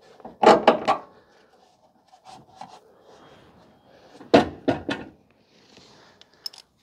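Tools and parts knocking against each other while working on a truck's rear shock mounts: a quick run of three or four sharp knocks about half a second in, another run around four and a half seconds in, and a couple of light clicks near the end.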